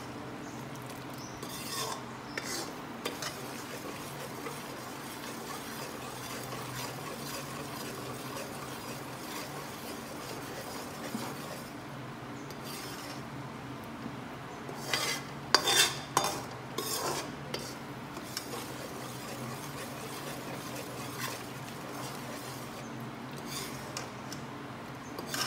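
Slotted metal spoon stirring and scraping whole-wheat flour roasting in ghee in an aluminium kadhai, with a soft sizzle; the flour is now roasted. A cluster of sharper clinks of the spoon against the pan comes about 15 to 17 seconds in.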